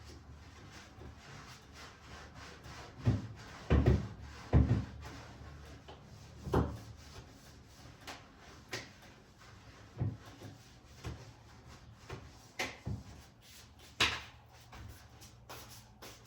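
Household handling sounds: a series of separate knocks and light thumps, with rubbing between them, as things are moved and put away. The loudest knocks come close together a few seconds in, and fewer, more spaced knocks follow.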